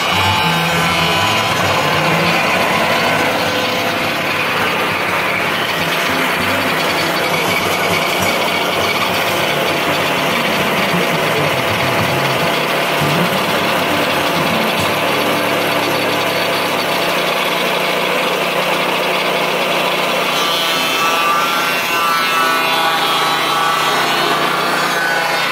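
Portable band sawmill driven by a Kohler gasoline engine, running steadily while the band blade cuts through a log: a continuous mechanical drone with steady tones over the noise of sawing. The lowest hum drops away about two-thirds of the way through.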